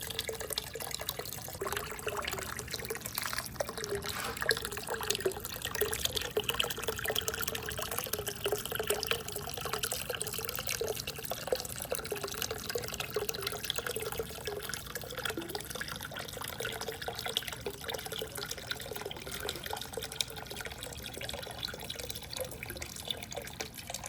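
Water running and trickling steadily through a water marble run, with many small clicks and taps throughout.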